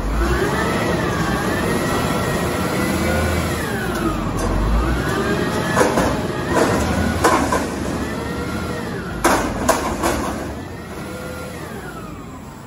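White GMC WX64 garbage truck running its hydraulics, the engine and pump whine rising and falling about four times under load, with several sharp metal clanks, the loudest a pair about nine and a half seconds in.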